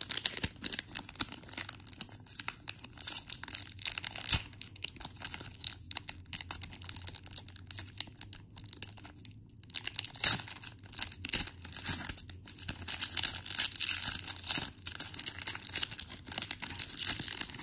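Foil trading-card booster pack being crinkled and torn open by hand: a dense run of crackling and tearing, with a brief pause about nine seconds in.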